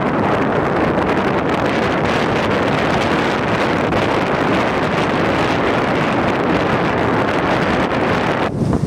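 Strong gusty wind buffeting the microphone, a loud steady rush.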